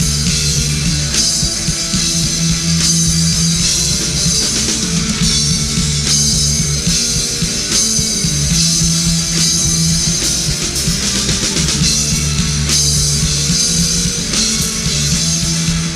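Rock band playing live: an instrumental passage with drum kit, electric guitar and bass, with no singing.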